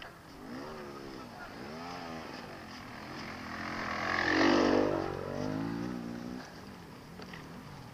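Off-road dirt bike's engine revving up and down as the bike approaches along the trail, growing loudest as it passes close about four and a half seconds in, then fading away.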